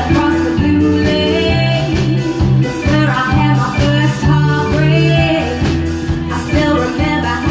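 Live band playing: a woman singing over electric bass guitar, drums and keyboard.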